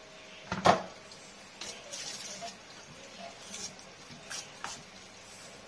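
A metal spoon clinking against a stainless steel mixing bowl, one loud ringing clink about half a second in, then lighter clicks and scrapes as chicken pieces are stirred through egg and sago flour.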